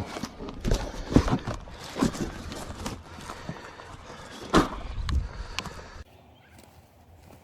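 Irregular crunching steps with low thumps, walking on rough ground, cutting off abruptly about six seconds in.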